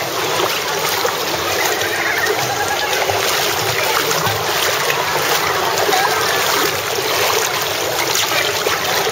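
Swimming-pool water splashing and sloshing continuously as children kick and paddle in inflatable swim rings.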